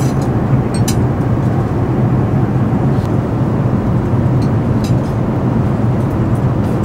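Steady cabin noise of an Airbus A380 airliner in flight: an even, low roar of airflow and engines, with a few faint light clicks.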